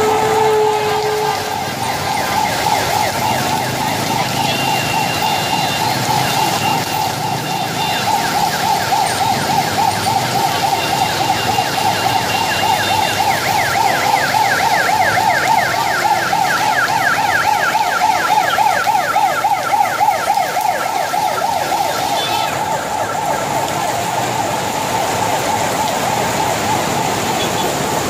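A siren sounding over the even hiss of heavy rain. It holds a wavering wail, switches to a fast warble of several sweeps a second from about a third of the way in, and settles back to the wail in the last few seconds.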